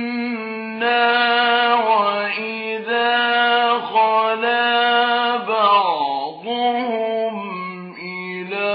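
A male reciter chanting the Quran in the slow, melodic mujawwad style, holding long drawn-out notes; about six seconds in, the voice slides down and back up in pitch.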